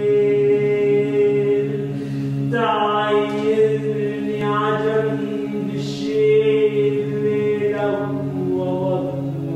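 Low voices chanting a sustained drone in several held pitches. About two and a half seconds in, a brighter voice joins over it, its tone shifting as it sings.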